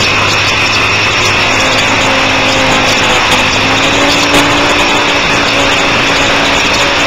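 Motorcycle engine running hard at track speed, heard from an onboard camera with wind rushing over the microphone. The engine pitch rises a little about three seconds in.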